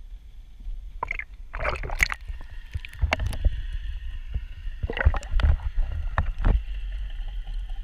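Water sloshing and splashing around a hand and a camera being dipped under the surface, with a steady low rumble and several sharp irregular splashes, muffled once the camera is below water.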